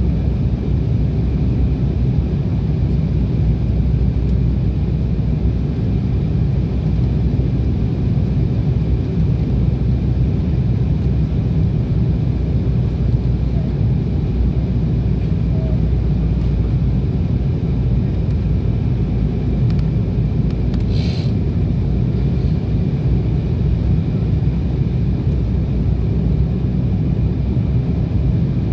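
Airliner cabin noise during the approach: the steady low drone of the engines and rushing airflow, heard from a passenger seat. A brief sharp sound cuts in once about three-quarters of the way through.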